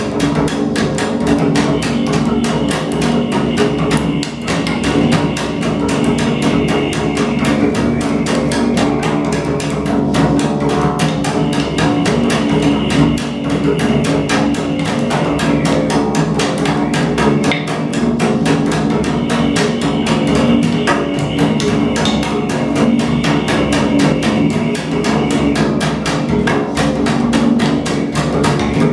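Acoustic double bass played with the bow in rapid, even, percussive strokes over a steady low drone, an extended-technique passage in a free-improvised solo.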